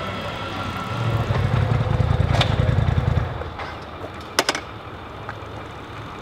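A vehicle engine rumbles low and loud for about two seconds, then fades away. Two sharp clicks come through, one in the middle and a louder one near the end.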